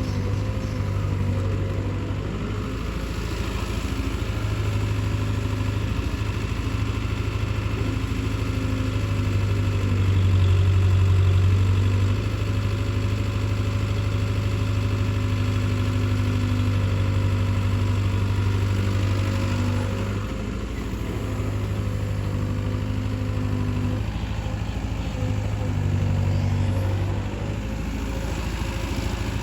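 Heavy diesel machinery engine running with a steady low hum. It grows louder for about two seconds around ten seconds in, then eases off briefly twice later on, as the load on it changes.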